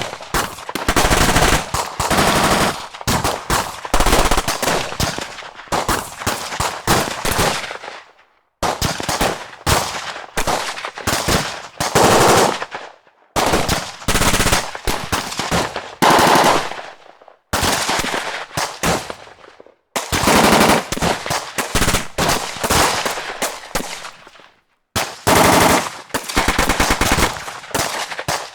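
Automatic gunfire: bursts of rapid machine-gun shots, each a second to a few seconds long with brief pauses between them.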